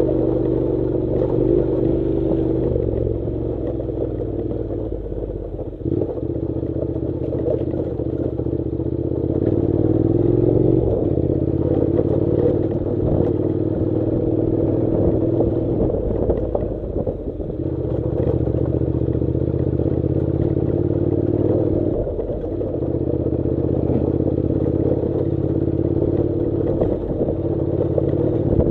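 Honda NC700's parallel-twin engine pulling at low revs as the motorcycle rides a rough gravel track, its note rising and dipping a few times with the throttle.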